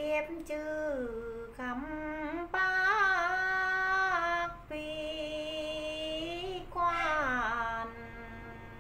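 A woman singing phong slư, the Tày folk form of sung verse, solo and unaccompanied: long held notes that waver slightly and slide down at the ends of phrases, with short breaths between them.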